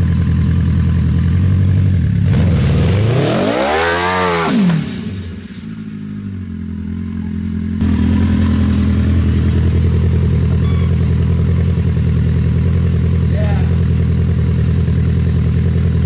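Honda CBR 1000 inline-four motorcycle engine in a homemade buggy, idling, then revving as the buggy pulls away about two seconds in. The engine note rises and falls, then drops off as the buggy drives away. After about eight seconds a loud, steady idle returns.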